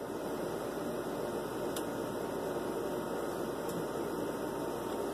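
Steady mechanical hum and hiss of an appliance running, holding even throughout with a couple of faint ticks.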